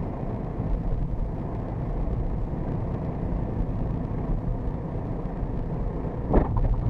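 Steady low road and engine rumble inside a moving car at city speed, with a short, loud thump about six seconds in.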